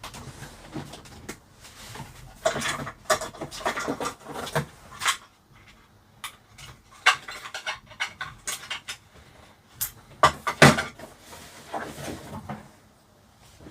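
Irregular clicks, knocks and rattles of small hard parts and tools being handled on a workbench, loudest in a cluster a little past the middle.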